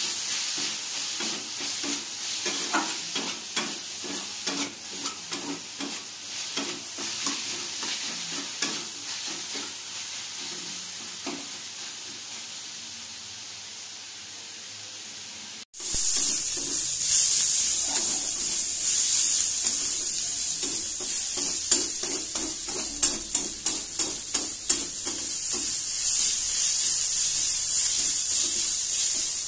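Sliced onions and green capsicum sizzling in oil in a metal wok, with a metal spatula scraping and clacking against the pan as they are stirred. About halfway through the sizzle jumps louder, and a few seconds later comes a quick run of sharp spatula clacks.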